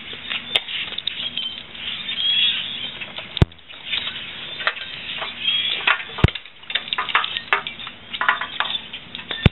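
Rustling and handling noises close to the microphone, with three sharp clicks about three seconds apart. No engine is running.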